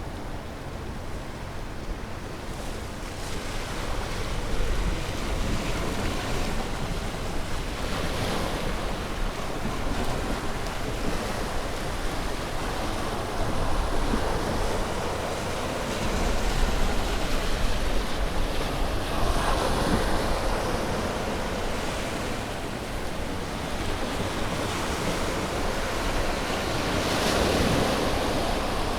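Ocean waves breaking and washing on a shore, in slow rolling surges every few seconds, with a low rumble that sounds like wind on the microphone.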